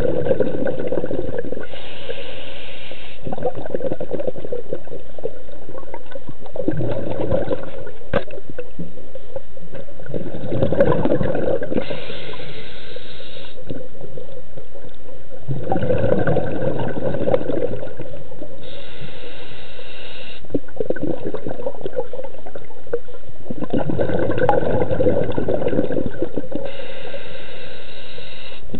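Scuba diver breathing through a regulator underwater: four breaths, each a bubbling rumble of exhaled air followed by the hiss of the next inhale through the regulator.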